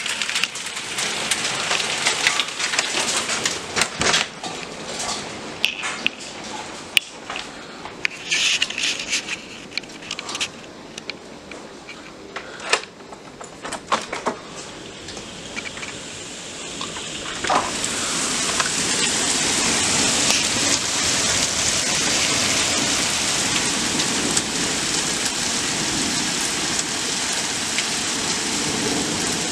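Hailstones striking hard surfaces: irregular sharp ticks and knocks of separate stones, then about eighteen seconds in the fall thickens into a steady, heavy rush of hail and rain.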